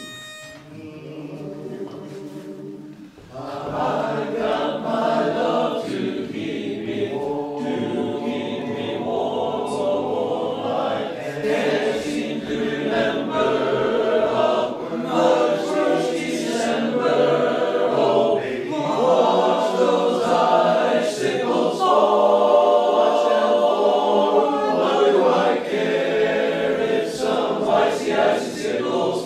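A choir singing unaccompanied in several parts, coming in fully about three seconds in with held, changing chords.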